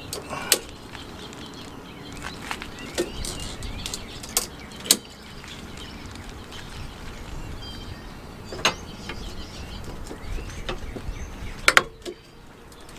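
Ratchet strap being cranked tight, its ratchet giving a series of sharp, irregularly spaced clicks as the strap takes up heavy tension. Birds chirp faintly in the background.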